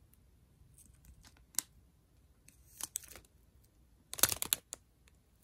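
Plastic packaging crinkling and rustling as it is handled, in scattered short crackles, with the loudest burst of crinkling about four seconds in.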